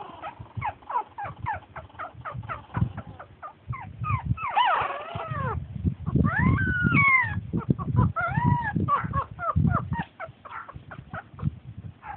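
Pug puppies yipping and squeaking while they play-fight. A quick run of short squeaks in the first few seconds gives way to longer whines that rise and fall in the middle, over low scuffling and bumping.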